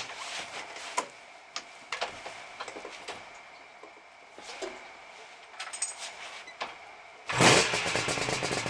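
Suzuki GT380 two-stroke triple being kick-started: a few scattered clacks and knocks as it is kicked over, then the engine catches suddenly near the end and runs loudly with a fast, busy pulse.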